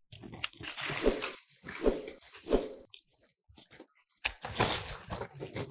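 Durian leaves and twigs rustling and crackling as the branches are handled, in several short bursts, with a couple of sharp clicks among them.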